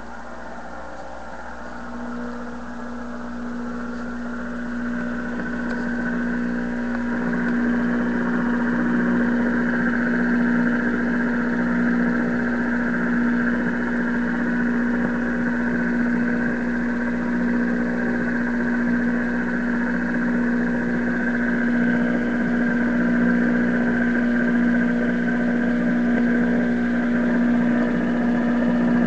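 RCA Victor 5T5 tube radio on the shortwave band giving a steady droning hum with a hiss of static over it. It grows louder over the first several seconds, then holds.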